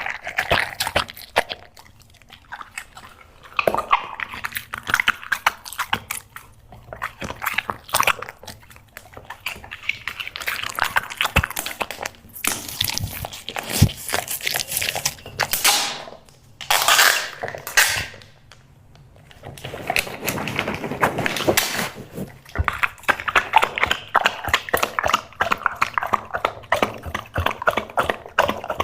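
A dog eating, chewing and crunching its food in bouts of rapid crackling bites, with a couple of short pauses.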